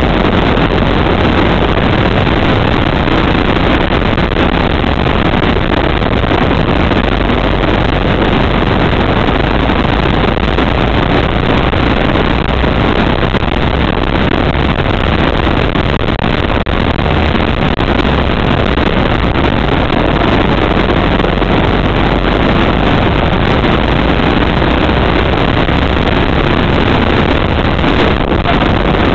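Go-kart engine running under load through a lap, heard from a camera mounted on the kart: a loud, steady drone with little change in level.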